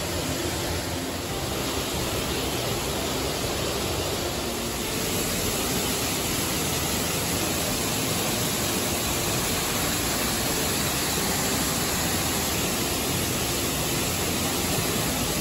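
Steady rushing of falling water, an even hiss with no pauses, growing slightly louder about five seconds in.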